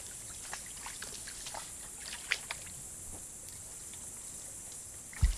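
Moose drinking at the edge of a shallow pond: scattered small splashes and drips of water over a steady high hiss, with a brief low thump near the end.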